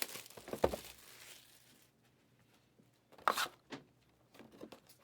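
Trading card pack wrapping being torn and crinkled in short rustles: a few in the first second, then a handful more from about three seconds in, with quiet between.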